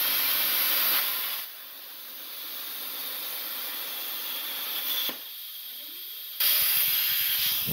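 A CNC plasma cutter torch cutting copper sheet, its arc and air stream hissing loudly. The hiss drops away about a second and a half in. A click comes about five seconds in, and the full hiss starts again about six and a half seconds in.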